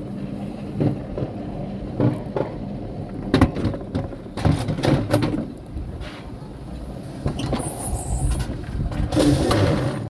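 Alpine coaster sled being hauled up its tubular metal rail track, its wheels running on the rails with irregular clacks and knocks throughout.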